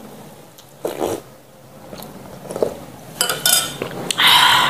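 Close-miked eating sounds: scattered mouth noises and chewing, with a spoon on a dish, and a loud rushing noise lasting about half a second near the end.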